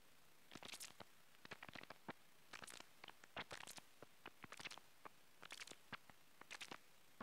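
Faint, irregular clicks and crackles, a few each second in small clusters, over near silence.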